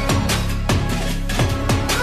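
Electronic background music with a steady kick-drum beat and synth tones.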